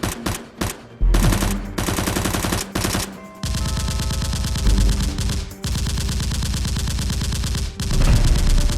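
Rapid automatic gunfire in several long bursts, with brief breaks about a second in, after three seconds, and again after five and a half seconds.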